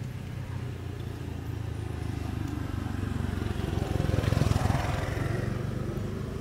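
A motor vehicle's engine rumble, swelling to its loudest about four seconds in and then easing off.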